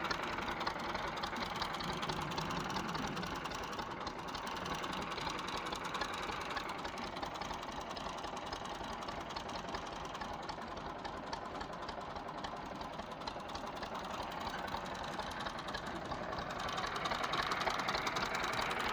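Massey Ferguson 240 tractor's three-cylinder diesel engine running steadily, turning the long drive shaft to a tubewell pump. It gets a little louder near the end.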